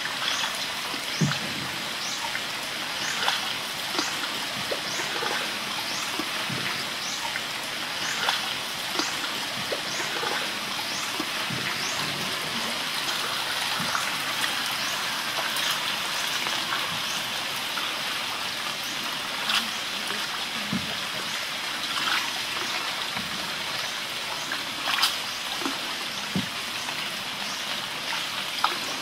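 Water trickling and lapping around a canoe as it glides along a flooded channel, with scattered drips and small splashes. A short, high, falling chirp repeats about once a second through the first half, then fades out.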